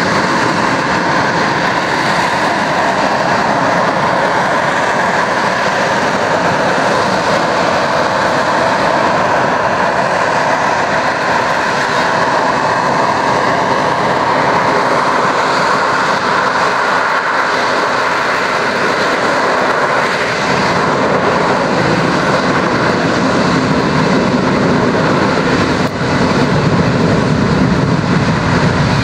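Sea Harrier's Rolls-Royce Pegasus vectored-thrust turbofan running at hover power: a loud, steady jet roar with a high whine over it. The low rumble grows stronger in the last few seconds as the jet comes down onto the runway.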